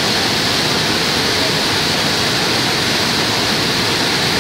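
A muddy river in flood, its brown torrent rushing and churning over rocks in a loud, steady rush of water.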